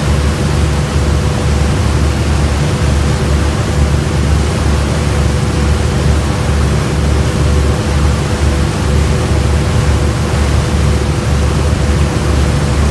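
Steady noise of a boat under way: a low engine drone with a constant hum, over a wide rush of wind and water.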